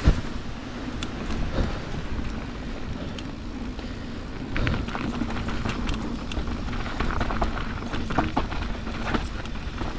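Mountain bike rolling fast down a dirt trail: steady tyre noise over dirt and rock, with wind rumbling on the microphone. The bike gives sharp rattles and clicks over bumps, busier in the second half.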